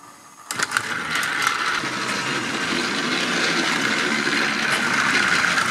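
Battery-powered Paw Patrol toy fire truck and toy train driving along their plastic track, their small electric motors and plastic gears whirring steadily, with a few clicks. They start up about half a second in.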